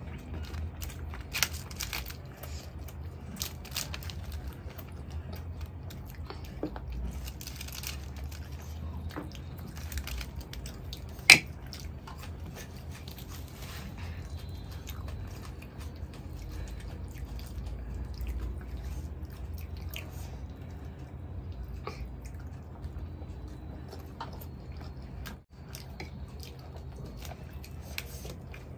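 Close-up eating sounds of two people eating masala chaap and naan by hand: chewing, wet mouth sounds and small clicks over a low steady hum, with one sharp click about eleven seconds in.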